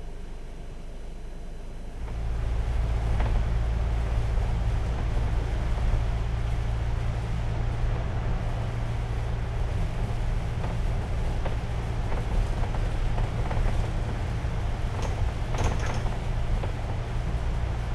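Steady low engine drone and road noise heard from inside a moving double-decker bus, louder from about two seconds in, with a hiss over the top from tyres on the wet road.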